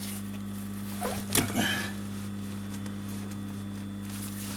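Steady low electrical hum, with a brief clatter of handling clicks and rustle about a second in, the sharpest click near the middle of it.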